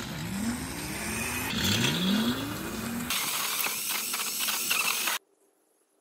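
Electric BLDC motor of a converted mini bike whining, its pitch rising twice as it accelerates and then holding a steady note, followed by a steady rushing noise. The sound cuts off suddenly a little after five seconds in, leaving near silence with a faint hum.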